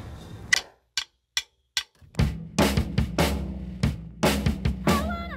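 A rock drum kit: one hit, three sharp evenly spaced clicks as a count-in, then a beat with bass drum, snare and cymbals over a steady low bass line. A woman's singing voice comes in near the end.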